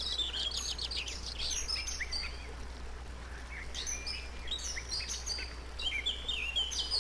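Birds singing and chirping, a dense run of quick high chirps and short falling whistles, over a soft steady rush of small waterfalls. This is a nature-soundscape recording of birdsong and water.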